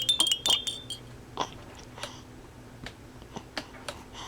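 A small chime tinkling with a few sharp clicks for about the first second, then scattered soft clicks and smacks.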